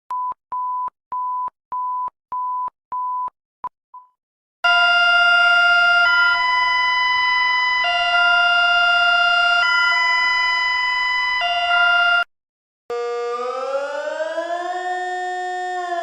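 A run of electronic emergency alert tones. First a row of short, single-pitched beeps at about two a second, ending in two clipped beeps; then a loud steady chord that switches back and forth between two chords every second or two; then, after a brief gap, a many-toned siren-like wail that slides up, holds and starts sliding down near the end.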